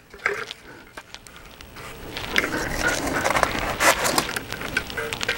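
Styrofoam retaining-wall pieces scraping and crackling as they are handled and pressed into place with construction adhesive, in irregular short clicks that grow louder after about two seconds.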